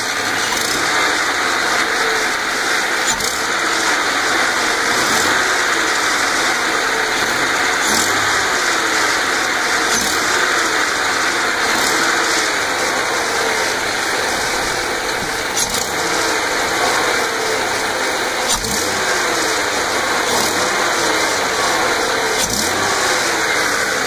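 1995 Ford Mustang 3.8-litre V6 running and being revved repeatedly, its pitch rising and falling, under a steady high hissing whistle. The whistle is air being drawn in at a leaking joint between the PCV valve and its hose, a vacuum leak.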